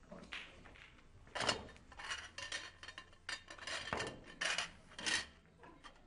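Pool balls clicking together as they are gathered and pressed into the rack: a string of about a dozen sharp, unevenly spaced clicks, ending a little before the final second.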